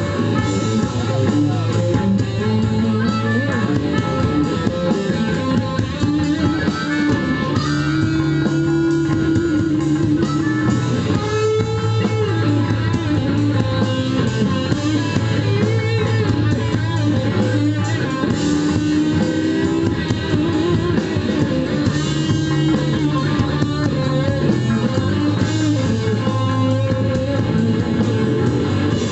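Blues-rock band playing an instrumental passage: an electric guitar solo with bending notes over bass guitar and drum kit.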